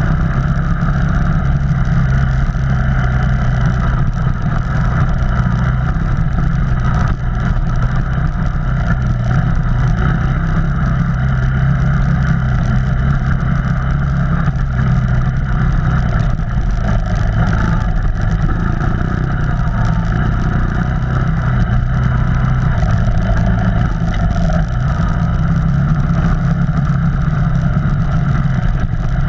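Off-road vehicle engine running at a fairly steady speed, its pitch changing little.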